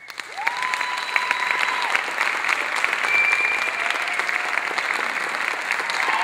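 Theatre audience applauding, starting suddenly out of silence, with a couple of long whoops of cheering over the clapping.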